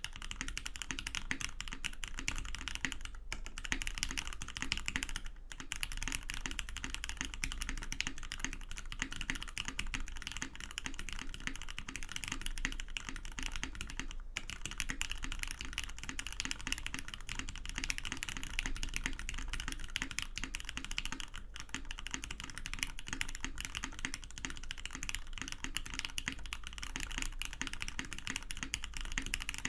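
Continuous fast typing on a zekk.works Seulgi V2 mechanical keyboard: an aluminium plate, Cherry MX Black linear switches lubed with Krytox 205g0, and NCR SAU-profile dye-sub keycaps. The keystrokes come thick and steady, with a few brief pauses.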